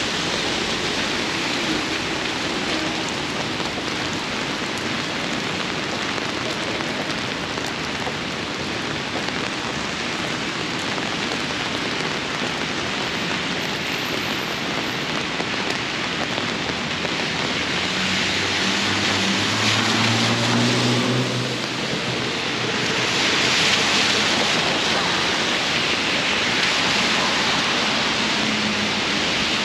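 Steady rain falling on the street. In the second half, vehicles pass on the wet road, with an engine hum and rising and falling tyre hiss.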